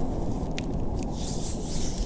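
Steady low rumble of snowstorm wind, with a soft rustle coming in about halfway through.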